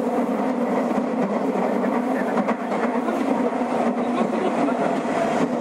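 Interior running noise of a Nagoya Municipal Subway 2000 series train in the tunnel: a steady wheel-and-rail rumble with a few faint clicks from the track.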